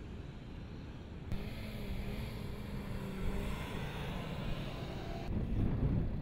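2013 Range Rover SUV engine driving on sand, cut across several shots: a low rumble, then from about a second in a steady engine note, then near the end a louder, deeper rumble as the SUV climbs a dune under power.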